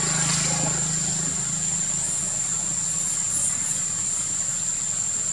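A steady low mechanical hum, like an engine idling, under a constant high-pitched whine, with a brief rush of noise at the very start.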